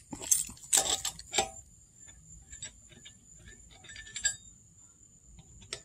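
Cross lug wrench on a car wheel's lug nuts: a few sharp metal clinks as the socket goes onto a nut, then a run of light, quick ticking as the loosened nut is spun off.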